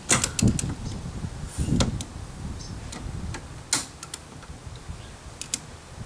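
Scattered sharp clicks and taps of a small flat-blade screwdriver working at a plastic retaining clip on the interior door handle's lock cable. Several come close together at the start, then single clicks a second or two apart, over low handling rumble.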